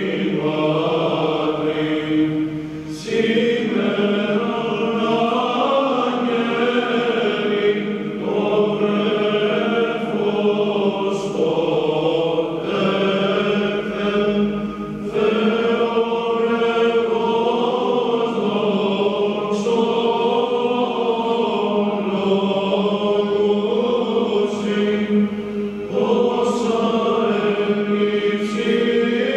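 All-male choir singing a Byzantine chant hymn of the Christmas season, with short breaks between phrases.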